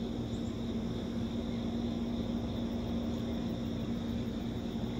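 Steady outdoor background noise: a constant low hum over a soft hiss, unchanging throughout, with a few faint high chirps.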